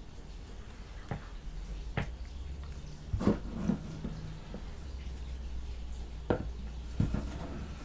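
Light handling noise: about half a dozen short taps and clicks as plastic action-figure parts are turned over, lifted and set down on a cutting mat, over a low steady hum.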